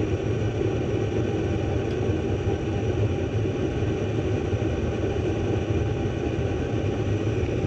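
Two-stage gas furnace running on its second stage: a steady rumble of the burners and draft inducer motor with a low hum, before the blower fan comes on.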